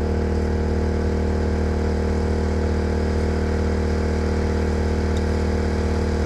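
Portable generator engine running steadily at a constant speed.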